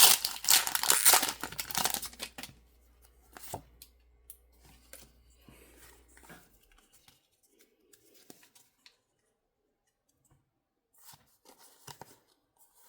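A foil booster pack wrapper crinkling and tearing open for about two and a half seconds, then faint rustling and small taps of trading cards being handled.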